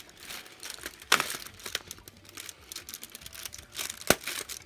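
Cardboard advent calendar door being picked at and pulled open, with crinkling and crackling of cardboard. Two sharper cracks stand out, about a second in and near the end.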